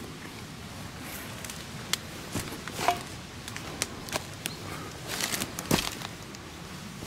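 Footsteps crunching through dry leaves, twigs and rotten wood debris, with scattered sharp cracks; the loudest come about three seconds in and just before six seconds.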